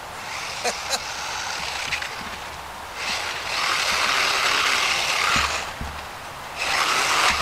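1/18-scale brushless RC monster truck driving: the motor and tyres run in two bursts, a longer one of about three seconds and a shorter one near the end. A couple of sharp clicks come about a second in.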